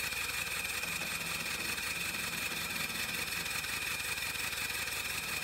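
Steam locomotive in steam: a steady hiss with a high, even tone running through it and a low rumble that comes and goes underneath.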